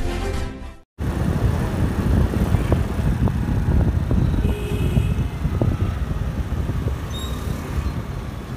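The tail of intro music fades out within the first second. Then comes steady engine and road noise from a motorbike being ridden through city traffic, a dense low rumble with a few faint clicks.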